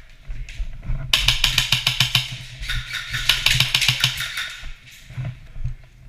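Airsoft gun firing a rapid string of sharp clacking shots, starting about a second in and stopping about a second before the end.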